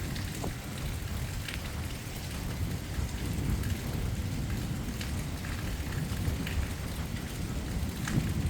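Rain falling in a thunderstorm, with a steady low rumble underneath and scattered short drips and ticks.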